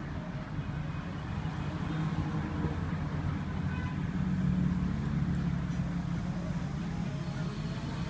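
Steady low rumble of background noise, swelling a little around the middle.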